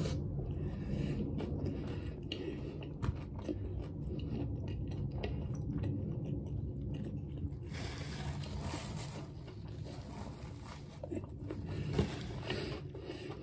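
Close-up chewing of a mouthful of sub sandwich loaded with lettuce, pickles, cheese and meats, with many small wet clicks and crackles throughout.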